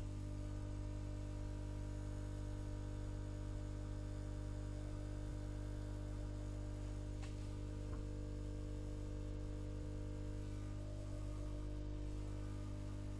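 Steady electrical mains hum and buzz at an even level, with a few faint ticks.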